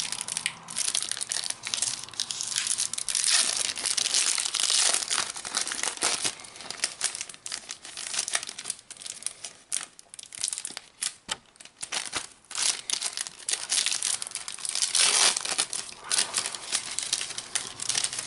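A trading-card pack's wrapper being torn open and crumpled by hand: a long run of crinkling and tearing with many sharp crackles.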